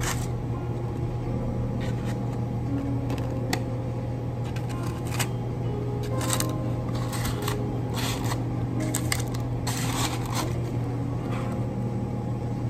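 Metal tongs clicking and paper cupcake-style liners rustling as macarons are lifted and set into a cardboard box: scattered light clicks and rustles, busiest in the middle. A steady low hum runs underneath throughout.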